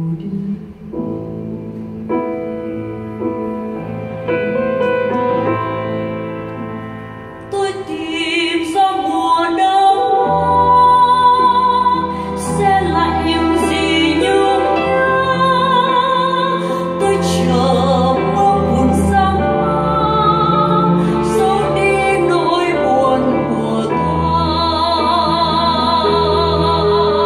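Live music on electronic keyboards, soft sustained chords at first, then a fuller arrangement with a deep bass line from about ten seconds in. A woman sings with vibrato over it.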